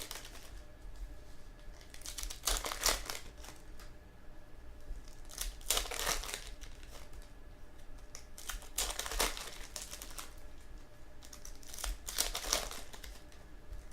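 Trading-card pack wrappers crinkling as card packs are handled and torn open, in short rustles about every three seconds.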